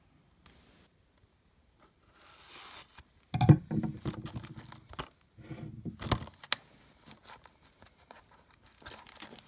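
Plastic shrink-wrap on a Blu-ray case being slit with a folding knife and torn open, crinkling and tearing in two bursts around the middle, with a few sharp clicks.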